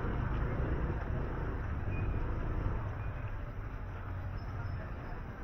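Outdoor street ambience: a steady low rumble of motor traffic, easing slightly toward the end.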